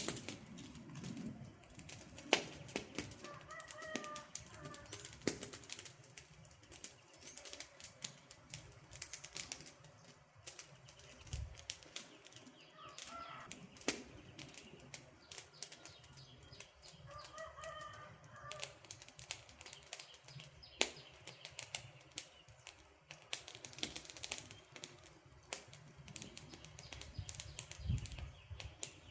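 Wood campfire crackling, with irregular sharp pops and snaps over a low hiss. A bird calls briefly a few times in the background.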